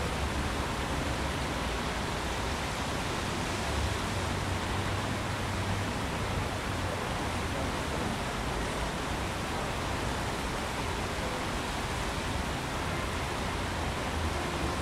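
Steady rush of the Tsavkisi-Tskali stream running over small rocky cascades and a waterfall, with a low rumble coming and going underneath.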